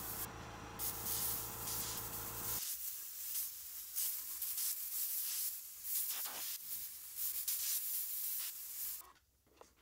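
Badger Anthem bottom-feed airbrush spraying paint in short hissing bursts of air as fur strokes are laid down. A steady low hum runs under the first couple of seconds, then stops. The spraying stops shortly before the end.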